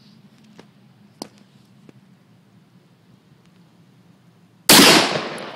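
A single very loud shot from a Smith & Wesson Model 460 revolver firing .460 S&W Magnum rounds, near the end, with its echo dying away over about a second.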